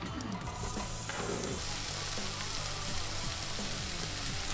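Sausage and green peppers sizzling in a frying pan on a wood-fired rocket stove; the steady sizzle comes in about half a second in.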